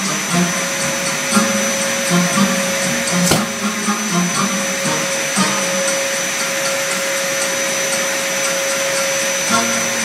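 Henry canister vacuum cleaner running steadily, its motor noise carrying a constant whine. A single sharp click sounds a little over three seconds in.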